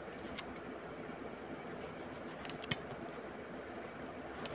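Knife slicing a tomato on a plate: a few scattered short clicks and taps of the blade against the plate over faint steady background noise.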